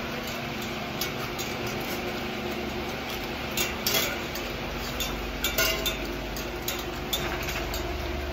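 Scattered light metallic clinks and scrapes of stainless steel bowls inside a steel wire cage as puppies lick and nudge them, over a steady low hum.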